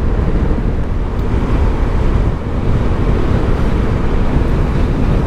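Vespa scooter cruising at steady speed: an even mix of engine and road noise with wind rushing over the microphone.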